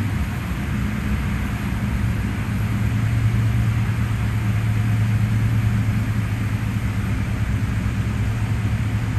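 Steady low mechanical hum of a running motor, with a rushing rumble of wind noise underneath. The hum grows a little louder about three seconds in and eases off again toward the end.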